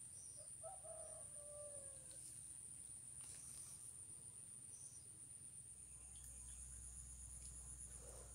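Faint, steady high-pitched insect drone, with a second high tone joining past the middle. A single faint drawn-out bird call about half a second in, falling at its end.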